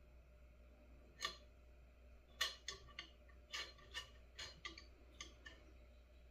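Faint, light clicks and taps of small hand tools at a soldering bench: one tap about a second in, then a quick run of about nine clicks over the next three seconds.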